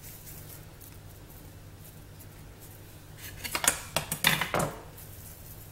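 Kitchen knife and flat wooden board set down on a granite countertop: a short run of sharp clatters and knocks about three and a half seconds in.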